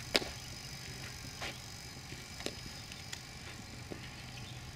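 A single sharp crack just after the start, then a few fainter clicks, over a steady low hum.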